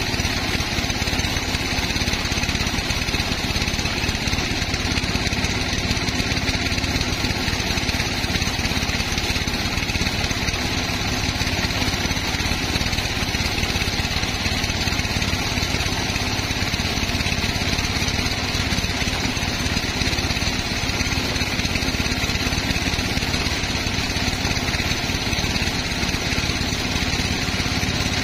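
Sawmill machinery running steadily, a constant engine-like drone with no breaks or changes.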